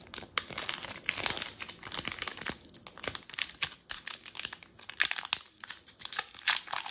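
Foil wrapper of a Pokémon booster pack crinkling and crackling in a string of quick irregular crackles as it is handled and worked open; the pack is hard to tear open.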